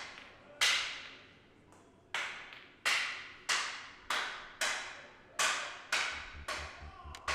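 Hockey stick knocking sharply on a hard floor in an off-ice stick drill, about ten echoing knocks spaced half a second to a second apart. A low, rapid pulsing throb comes in about six seconds in.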